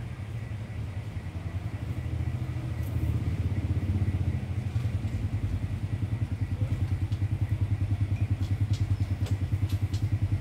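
A small engine running with a fast, even throb that gets louder about three seconds in, with a few faint clinks over it.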